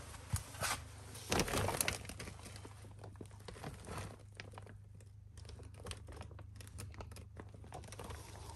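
Bag of potting soil being handled, its packaging crinkling and rustling in irregular crackles. The loudest rustling comes about a second and a half in.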